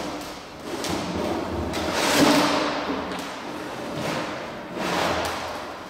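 Blue plastic drum knocking and scraping on a concrete floor as a young giant panda pushes, climbs on and rolls it: several uneven thumps and scrapes, the loudest about two seconds in.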